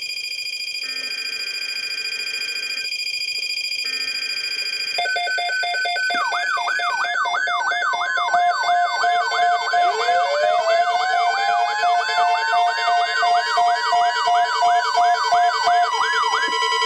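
Several weather radios sounding their alert alarms together for a tornado watch: steady electronic tones at first, then from about five seconds in more radios join with pulsed beeping, a fast warbling siren tone and, about ten seconds in, a slowly rising siren wail, the whole growing louder.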